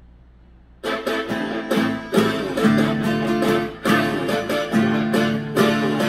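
Crafter acoustic guitar strummed in chords, coming in about a second in with a steady rhythm of strokes.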